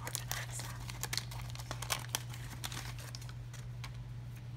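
Baseball cards and wax-paper pack wrapper being handled: a run of small crinkles and rustles, busiest in the first couple of seconds.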